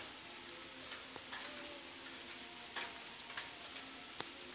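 Faint evening outdoor ambience, a low hiss with scattered light clicks, and a quick run of four short high chirps about halfway through.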